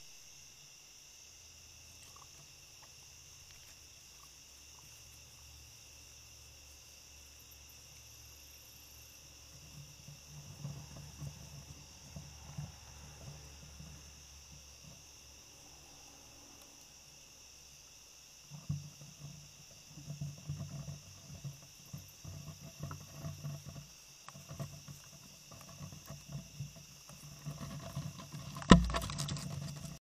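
Steady chorus of night insects such as crickets, a constant high trilling throughout. From about ten seconds in, irregular low rustling and bumps close to the microphone join it, with one loud thump near the end.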